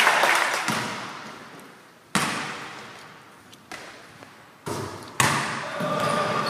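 Basketball game sounds on a hardwood gym floor: about four sharp ball impacts, each one echoing and dying away slowly in the hall.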